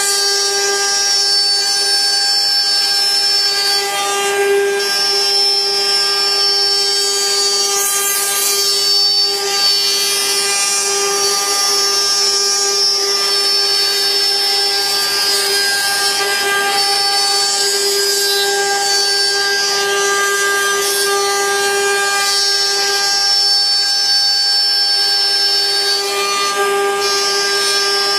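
CNC wood-carving router running steadily, its spindle giving a constant whine with overtones, mixed with the noise of the bit cutting wood.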